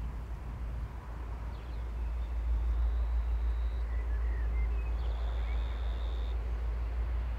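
Low, steady rumble swelling about two seconds in as a V/Line N class diesel locomotive approaches in the distance, mixed with wind on the microphone. A bird chirps a few times about four seconds in.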